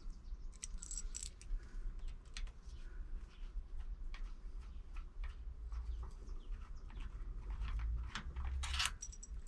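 Scattered light metallic clicks and clinks of a hand tool and steel bolts being handled while the engine's side-cover bolts are undone, with a louder clink near the end.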